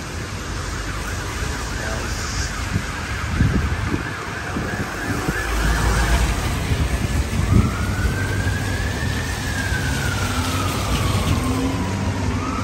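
Emergency vehicle siren wailing, one slow rise and fall starting about halfway through and beginning to rise again near the end. Underneath, heavy rain and car tyres hissing on a wet road.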